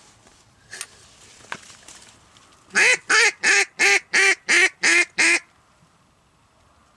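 A hand-held duck call blown in a run of eight loud quacks, about three a second, imitating a mallard's quacking to call in ducks.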